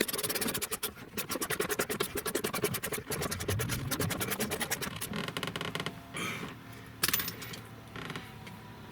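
A hand ratchet clicking rapidly as a console bolt is run in, then a couple of separate knocks near the end.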